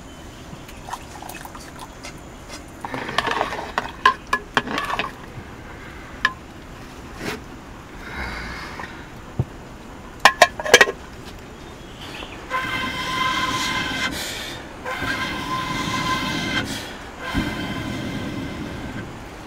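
A fire-blowing pipe blown into a wood fire three times in the second half, each breath a long blast of about one and a half to two seconds with a steady pitch, to fan the embers. A few sharp clicks and knocks come earlier.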